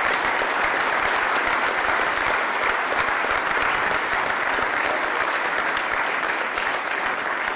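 Audience applauding steadily, a dense patter of many handclaps.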